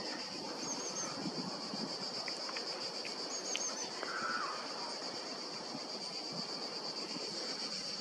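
Steady high-pitched drone of insects, with short high chirps from small birds about a second in and again after three seconds.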